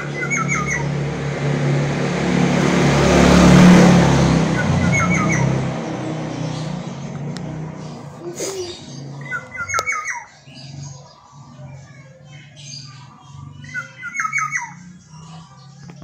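Black-naped oriole (kepodang emas) calling in its cage: a short, harsh run of quick falling notes, repeated four times about every four to five seconds. A loud rushing noise swells and fades over the first six seconds.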